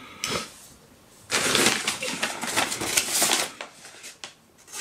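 Hands handling a Manly Patriot folding knife: a short scrape, then about two seconds of dense rustling, scraping and small clicks.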